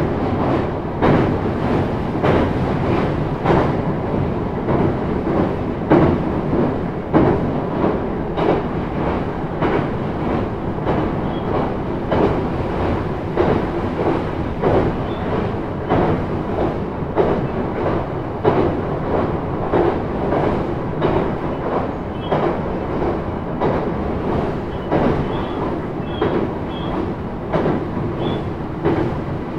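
Running noise inside a JR East E131 series 0 electric train under way between stations: a steady rumble of wheels on rails, with many short knocks from the track.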